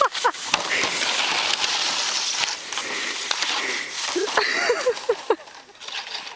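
Crunching, scraping hiss of snow as a bulldog puppy runs through it and pushes a plastic sled across it, easing off near the end. Short bursts of a voice come in at the start and again about four seconds in.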